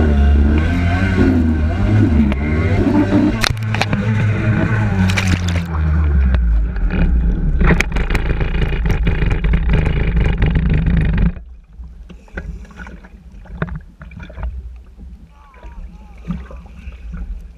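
Personal watercraft engine running with rushing water and spray, its pitch wavering and dropping about five seconds in. About eleven seconds in the engine and water noise cut off abruptly, leaving quiet water lapping with small knocks and clicks.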